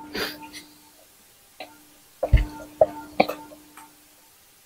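Eating sounds at the table: a handful of short clicks and taps from hands and spoons on plastic plates, with a dull thump a little over two seconds in, over a faint steady hum.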